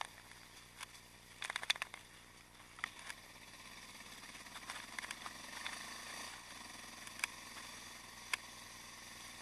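Yamaha XT660X single-cylinder supermotard with a Mivv exhaust ridden at low speed, its engine heard faint and muffled under a steady hiss, getting a little louder about four seconds in. A quick cluster of clicks comes about a second and a half in, and two sharp clicks near the end.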